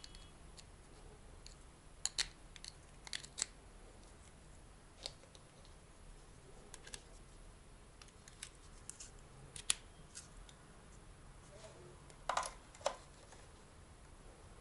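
Scattered small clicks and plastic knocks as USB plugs are pushed into a little plastic USB voltage-current tester and a plug-in charger, with a quick pair of louder clicks near the end.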